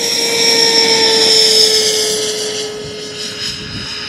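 Electric ducted fan of an HSD F-16 RC jet whining at takeoff power as it rolls and lifts off. It grows louder, peaks about a second and a half in and then fades, its pitch falling slightly as it passes by.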